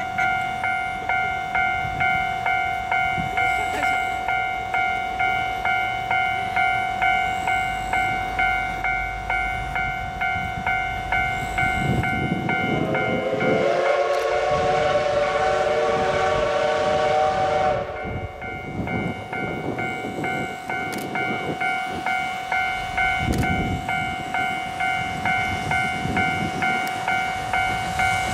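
JNR Class C57 steam locomotive C57 180 working toward the listener with a steady, even beat of exhaust chuffs. About halfway through, it sounds its steam whistle in one long chord-like blast of roughly five seconds.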